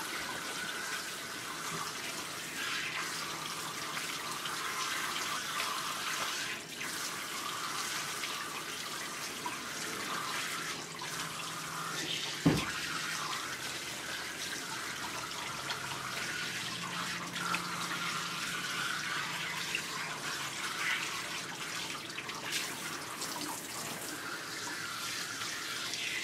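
Water spraying steadily from a handheld bath sprayer into a wet dog's coat in a grooming tub, a continuous hiss of water. One sharp knock about twelve seconds in.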